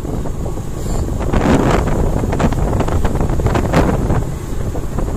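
Wind buffeting the microphone of a camera moving along a road: a steady low rumble that swells into louder gusts from about one to four seconds in.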